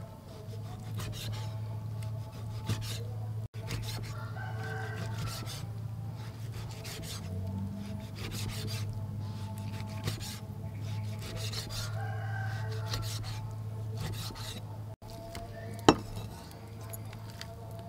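Steel cleaver slicing through raw pork on a wooden chopping block: repeated cutting and scraping strokes against the wood, over a steady low hum. A rooster crows twice in the background, and there is one sharp knock near the end.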